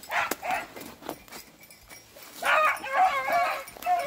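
Beagles baying on a rabbit's trail: a short bay near the start, then longer wavering bays that overlap from about two and a half seconds in.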